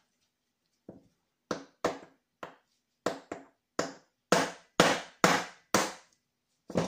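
Small hammer striking the crankshaft of a small nitro model engine about a dozen times to drive the stuck shaft out of its crankcase; the blows come harder about halfway through.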